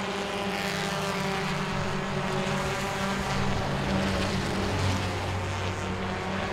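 Super Truck race engines running at speed on the oval, a steady drone that rises and falls only slightly as the trucks run nose to tail past and into the turn.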